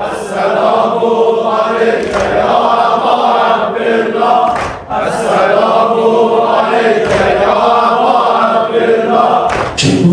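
A group of men chanting a Shia mourning lament (noha) together, in line-by-line phrases with short breaks between them.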